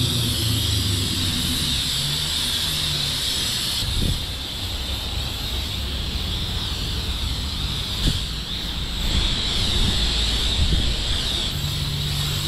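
Self-serve car wash spray wand hissing steadily as it sprays pre-soak onto a car's bodywork, over a low steady hum. There are two faint knocks, about four and eight seconds in.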